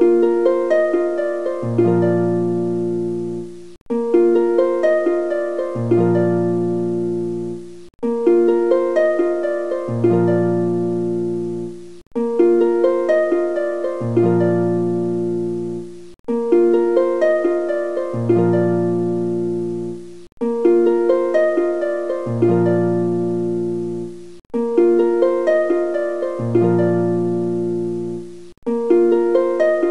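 Background music: a gentle plucked-string tune, like a harp, looping a short phrase of several notes about every four seconds, with a brief break between repeats.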